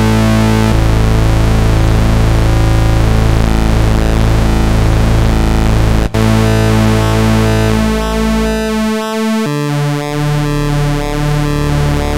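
Cherry Audio CA2600 software synthesizer, an ARP 2600 emulation, playing a layered patch of square-wave oscillators. The held notes' tone shimmers as the pulse width is swept by the clock-synced LFO, with a brief dropout about six seconds in and several note changes in the second half.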